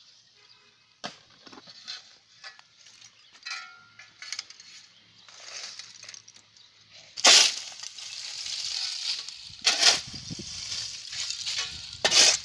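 Brittle coconut-shell charcoal clinking and crunching as it is shovelled, with scattered light clicks at first and three loud scraping crashes in the second half.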